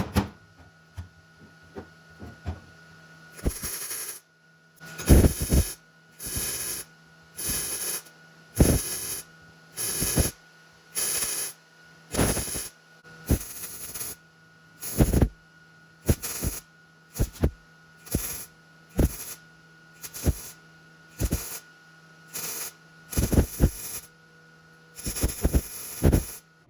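Welder stitch-welding a replacement sheet-steel floor pan in short crackling bursts, about one a second, over a steady electrical hum.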